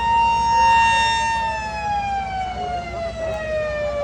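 Mini electromechanical siren sounding a steady tone, then winding down slowly in pitch from about a second and a half in. A fainter second tone wavers below it.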